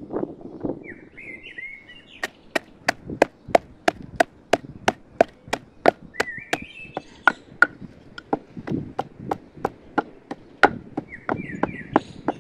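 Wooden pestle pounding walnuts in a wooden mortar: sharp, even knocks about three a second, starting about two seconds in. A bird chirps briefly now and then between the strokes.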